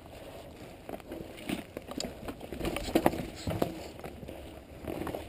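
Mountain bike riding down a dirt trail: tyres rolling over dirt and roots while the bike clatters in an uneven run of short knocks, the loudest about three seconds in.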